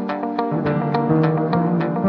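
Background music: an instrumental with a quick, even pulse of notes, about four a second.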